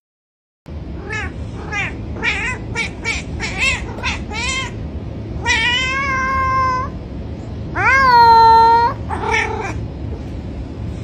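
Domestic cat meowing: a quick run of short meows, then two long drawn-out meows, the second rising and then held, and a shorter one near the end.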